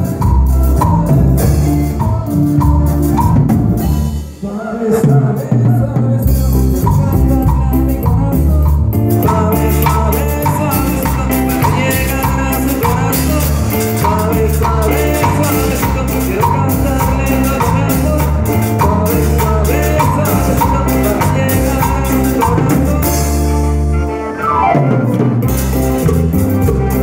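Live Latin dance music: an electronic keyboard with drum and bass sounds, and a metal güira scraped in a steady rhythm. The music drops out briefly about four seconds in, and a falling sweep comes near the end.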